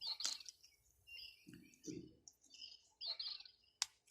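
Background birds chirping, a run of short high calls and whistles, with one sharp click shortly before the end.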